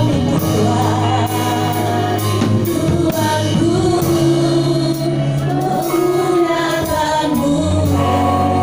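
A small group of women singing an Indonesian worship song together into microphones, over steady instrumental backing with held low notes.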